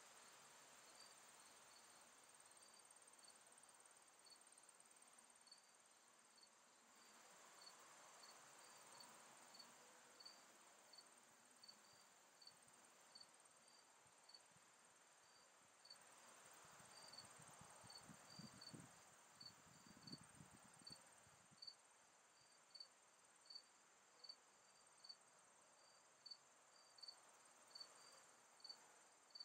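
Faint insect chorus: a cricket chirping regularly, a little more than once a second, over a steady high-pitched insect drone. The chirps grow louder in the second half. A brief low rumble comes about two-thirds of the way in.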